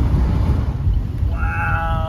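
Steady road and engine rumble inside a moving car. Near the end a man gives a long, drawn-out "wow" that slides down in pitch.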